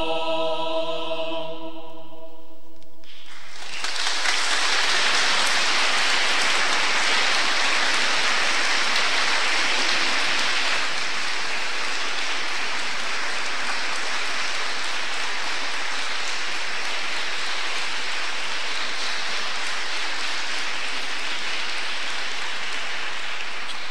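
Small mixed choir singing a cappella, holding a final chord that ends about three seconds in, followed by steady audience applause.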